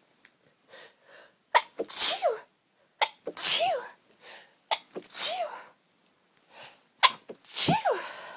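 A person sneezing four times in a row, each sneeze led by a sharp catch of breath and ending in a falling 'choo', part of a sneezing fit brought on by allergies.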